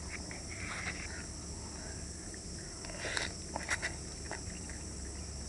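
Person slurping instant cup noodles and soup off a spoon and chewing, in a few short bursts, the loudest about three seconds in, over a steady faint hiss.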